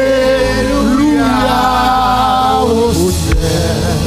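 Live gospel worship music: singers with microphones holding sung notes with a wavering vibrato over a steady instrumental accompaniment.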